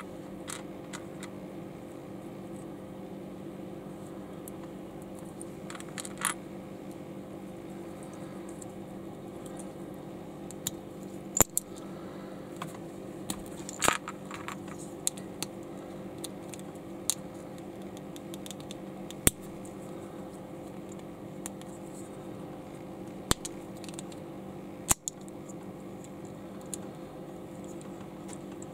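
Small plastic LEGO bricks being handled and pressed together: scattered sharp clicks and clacks at irregular moments, over a steady low hum.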